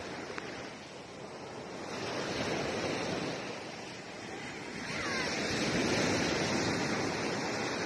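Sea waves washing on the shore, the surf swelling and easing: louder about two seconds in, softer around four seconds, then swelling again.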